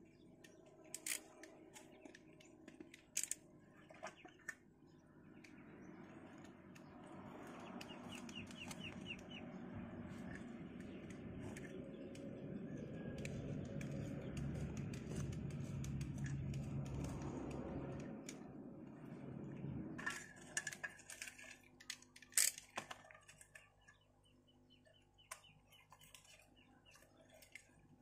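A knife clicks and taps against a metal tray while cutting into a raw duck, with chickens clucking in the background. A louder steady noise swells through the middle and stops sharply about two-thirds of the way in.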